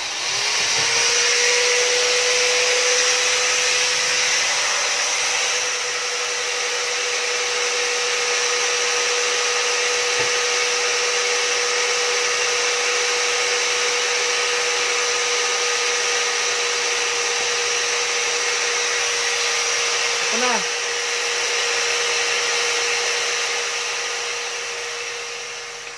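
Electric drill running continuously with a steady whine while it bores holes in an empty aluminium drink can, cutting out just before the end.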